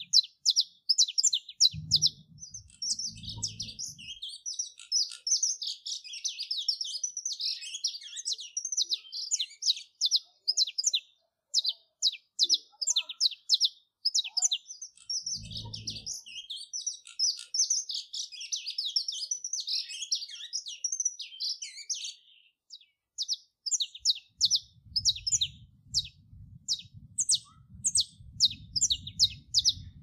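Saffron finch singing: a long, dense run of quick, high chirps and warbled notes, with a brief pause a little after twenty seconds. A few soft low thumps come near the start and in the middle, and a low rumble sets in over the last few seconds.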